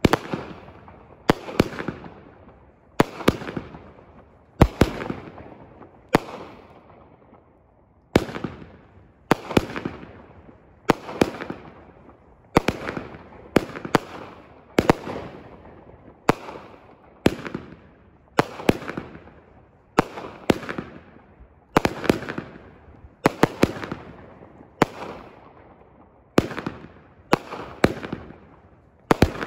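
A 36-shot, 200 gram consumer firework cake (Great Grizzly Battle of Colors) firing shot after shot. A sharp bang comes about every second and a half, often two or three in quick succession, and each one rings off into the open air.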